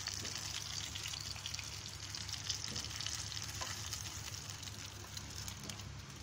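Coconut oil sizzling and crackling steadily in a nonstick frying pan where spiced fish has just been pan-fried, with a few faint ticks, easing off a little toward the end.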